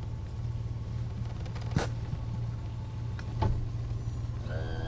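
Two sharp knocks in the bass boat, about a second and a half apart, as a man bends at the console and settles into the driver's seat, over a steady low hum. A short pitched tone with several overtones sounds near the end.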